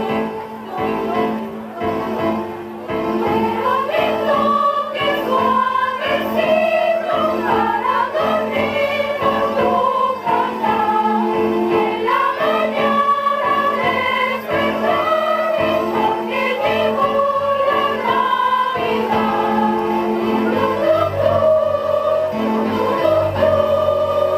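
A choir of mostly children's voices singing a song together, holding long sustained notes that move in steps.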